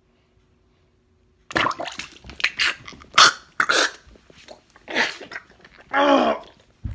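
A man coughing and spluttering hard, choking on a mouthful of cold water, starting about a second and a half in as a run of sharp bursts. Near the end comes a pitched, voiced cry.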